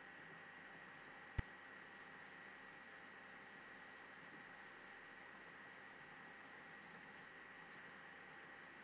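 Near silence with steady hiss and a faint steady whine, broken by one sharp tap about one and a half seconds in and then several seconds of faint, rapid swishing strokes: a hand tapping and sweeping across an interactive smart board screen while erasing. A small tick near the end.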